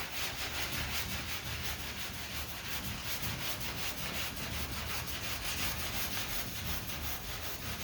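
Sandpaper on a hand sanding block scraping back and forth over lacquer primer on a car body panel, a steady continuous rasp of repeated strokes.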